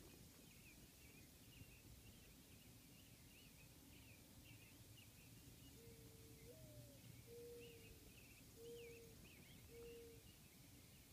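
Faint dawn birdsong: many small birds chirping steadily. About six seconds in, a low call joins them, one longer rising note followed by three shorter level notes.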